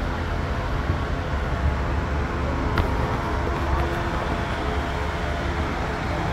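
Steady low droning background noise of a livestock barn, with a faint murmur of voices and a single click about three seconds in.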